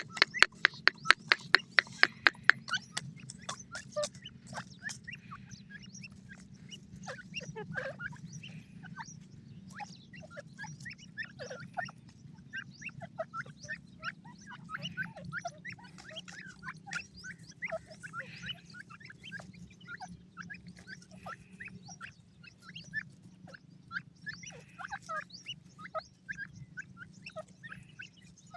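A fast run of sharp ticks, about five a second, for the first couple of seconds: the feeding call the chicks have learned to link with food. Then francolin chicks peep and cheep in many short calls over a steady low hum.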